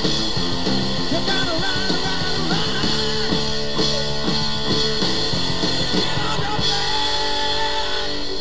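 Rock song with electric guitar playing over a steady beat.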